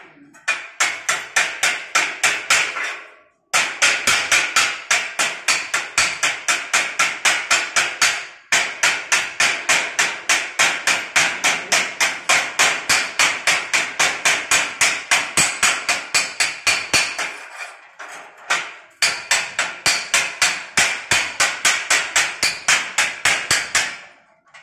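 Hammer striking metal in quick, even blows, about four or five a second, in runs of several seconds broken by brief pauses about three and a half, eight and a half and eighteen seconds in.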